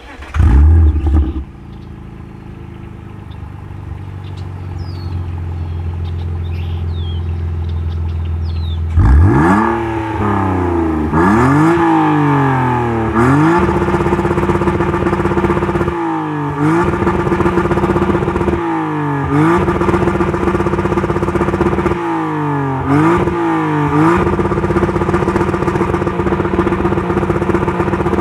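BMW M52TU 2.8-litre straight-six in a 1999 528i, running through a stock exhaust cut open in the middle with no muffler. It flares briefly as it starts and settles to idle, then from about nine seconds in it is revved in quick blips and held on a hard-cut rev limiter set at 7,000 rpm. On the limiter the pitch stays flat, dropping and coming back every few seconds as the throttle is eased and reapplied.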